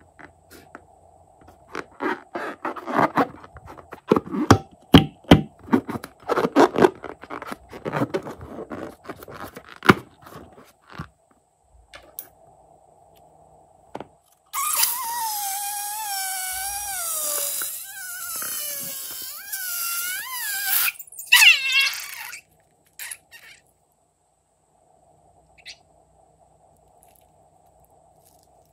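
Rubber balloon filled with orange liquid being handled, with many small rubbery clicks and crackles, then cut open and squeezed. About halfway through, a loud sputtering hiss with a wavering squeal in it lasts several seconds as liquid and air are forced out through the cut neck, followed by a second, shorter burst.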